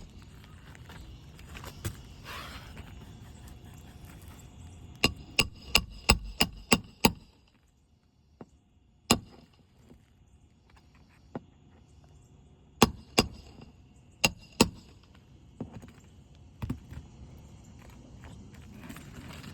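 Hammer blows on an asphalt shingle roof: a quick run of about seven strikes about a quarter of the way in, a single strike, then two pairs of strikes later on.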